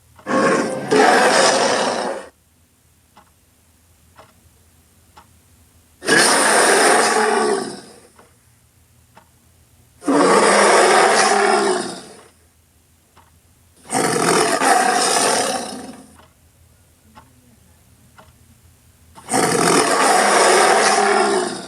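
Grizzly bear roar sound effect, five loud roars of about two seconds each, coming every four seconds or so.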